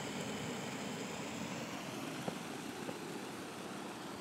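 Steady rushing of foam solution discharging through a Hose Monster flow-test diffuser during a foam system flow test. A single sharp click comes a little past halfway.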